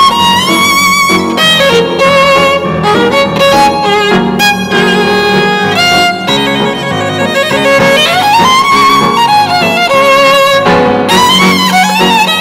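Solo violin playing a melody, with vibrato on held notes and slides up and down between them, over a low sustained accompaniment.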